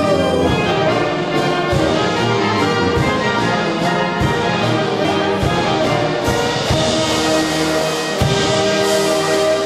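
Brass band playing a lively folk tune with trumpets and trombones over a steady beat of about two strokes a second.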